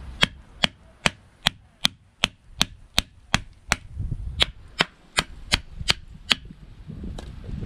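A run of about sixteen sharp knocks, evenly spaced at roughly two and a half a second, stopping about six seconds in.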